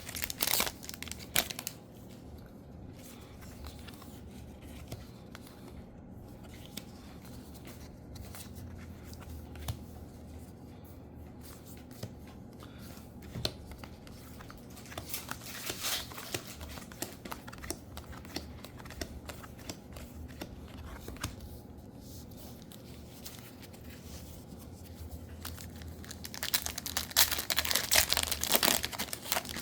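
Foil booster pack wrappers of Spider-Man trading cards crinkling and tearing open, loudest right at the start and again for the last few seconds. In between, quieter rustling and light clicks of the cards being handled.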